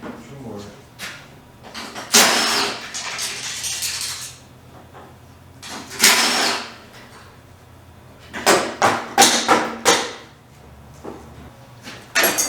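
Tool and metal work noise from unbolting a pickup's steel front bumper: a burst of about two seconds, a shorter burst, a quick series of short strokes, then a rapid run of clicks near the end.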